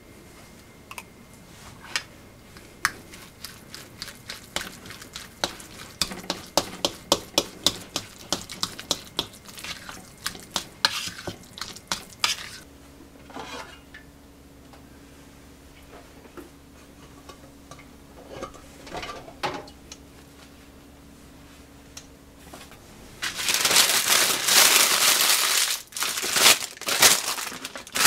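A utensil clicking and scraping against a bowl in quick strokes while mixing, densest in the first half. Then a quieter stretch with a steady low hum, and near the end loud crinkling of baking paper being unfolded and smoothed by hand.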